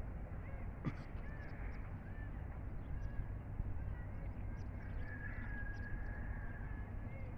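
Birds calling, with crows cawing, over a steady low rumble. Short chirps and calls come throughout, and a higher note is held for about a second past the middle.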